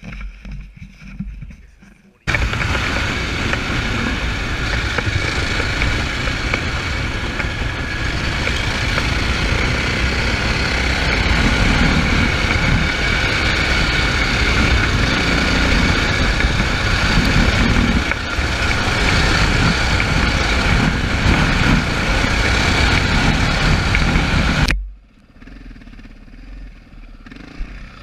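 Dirt bike running at speed on a dirt track, its engine buried in a loud, steady rush of wind and riding noise. The loud stretch starts abruptly about two seconds in and cuts off abruptly about three seconds before the end, leaving quieter engine noise.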